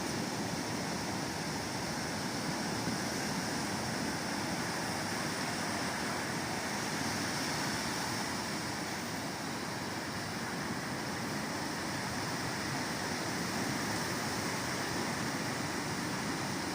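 Steady, unbroken wash of ocean surf mixed with wind.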